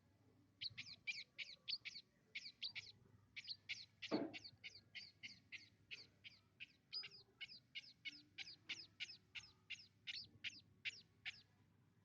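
Sparrow chirping over and over, about three short falling chirps a second. A single brief lower sound breaks in about four seconds in.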